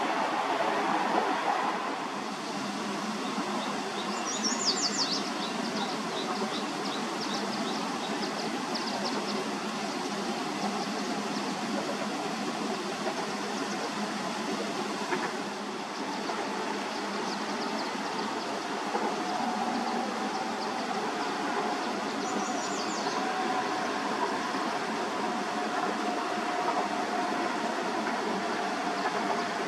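Freight train rolling past: a steady, even noise of rail cars on the track, with no big changes in level.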